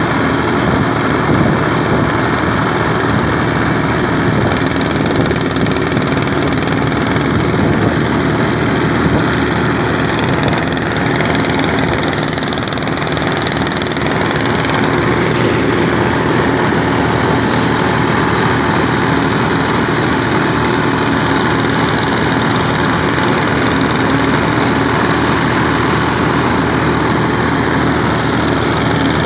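Small engine running steadily at one constant speed, a dense continuous hum.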